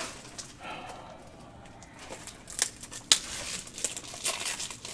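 Plastic packaging and trading cards being handled: crinkling rustles with several sharp clicks.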